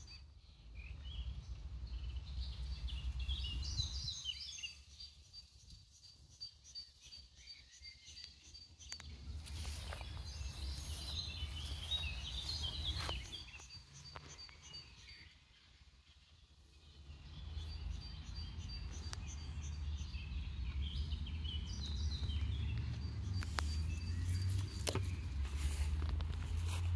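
Outdoor ambience of small birds chirping and singing, with a repeated high note, over a low rumble that fades out twice and is strongest near the end.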